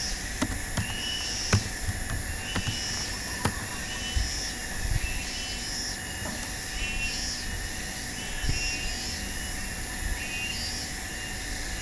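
Keyboard keys and a mouse button clicking sharply and irregularly over steady background hiss. The clicks fall mostly in the first few seconds as the search is retyped and the result clicked. A faint high chirp repeats about every three-quarters of a second throughout.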